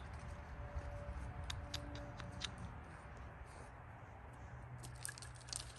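Quiet, irregular crunching and crackling of footsteps through dry fallen leaves, the crackles bunching in the first half and again near the end.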